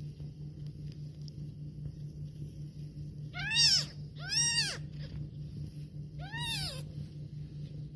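Newborn kittens mewing: three short, high-pitched mews, each rising then falling in pitch, two close together around the middle and one near the end.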